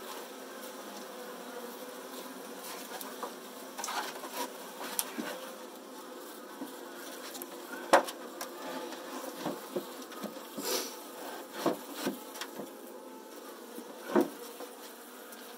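Saskatraz honeybees buzzing steadily around an open Layens hive. Several sharp knocks and clatters come as the sheet-metal lid is laid over the hive, the loudest about eight seconds in.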